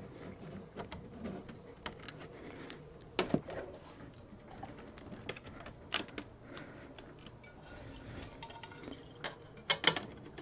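Scattered plastic clicks and knocks from handling the UPS battery module's red-and-black power connector as it is plugged together and tucked into the cabinet, with a few louder clacks near the end as the plastic front cover is handled.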